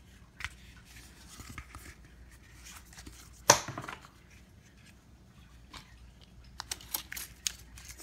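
Hands handling a plastic packaging insert and a small plastic USB hub: light scraping and rustling, one sharp knock about three and a half seconds in, and a quick run of sharp clicks near the end.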